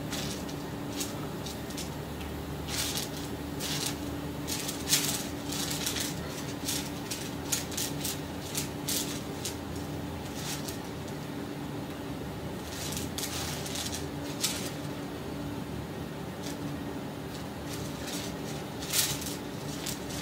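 Small dried items clicking and rattling against a plate as fingers sort through them, in irregular light taps with a few sharper clicks, over a steady low hum.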